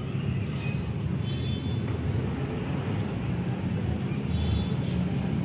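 Steady low rumble of a vehicle in motion, with two brief high tones, one about a second and a half in and one near the end.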